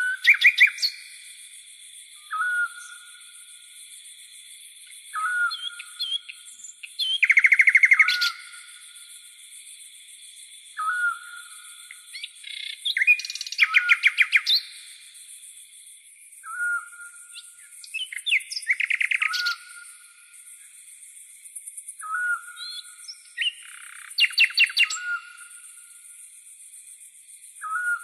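Birds calling at night: a short whistled note repeated every few seconds and several bursts of fast, loud chattering trills, over a continuous high chirring of crickets.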